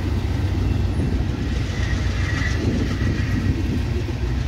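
Amtrak Superliner bilevel passenger cars rolling past at close range, a steady rumble of steel wheels on the rails.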